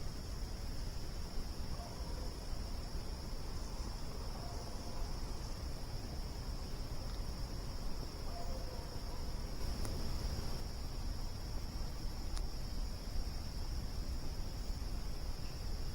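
Crickets chirping in a steady, continuous high-pitched chorus, over a low noisy hiss. A couple of sharp pops from the campfire come about ten and twelve seconds in.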